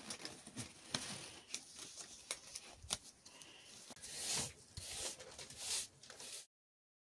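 Latex gloves being pulled onto the hands: plastic crinkling with several sharp snaps, then a few longer rustling sweeps. The sound cuts off suddenly near the end.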